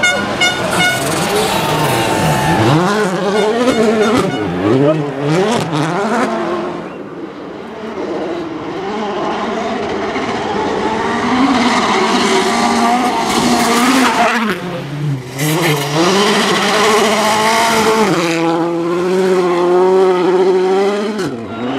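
Volkswagen Polo R WRC rally cars' turbocharged 1.6-litre four-cylinder engines revving hard, the pitch climbing and dropping through quick gear changes. The cars are heard in several separate passes.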